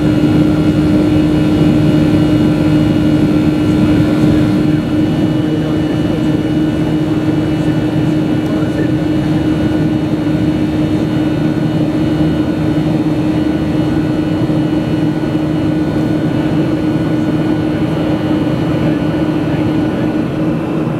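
Boeing 737-400's CFM56-3C1 turbofan engines at climb power, heard from inside the cabin: a steady drone with a strong low hum and several steady higher tones over the rush of air. The level dips slightly about five seconds in.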